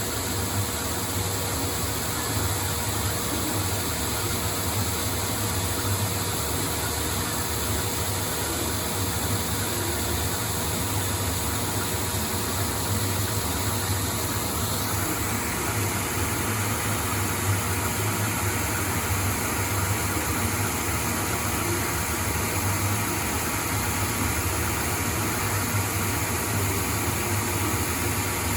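ProtoTrak CNC lathe taking a roughing pass on a 4140 heat-treated steel shaft: a steady machine hum with cutting noise over it. The noise shifts slightly about halfway through.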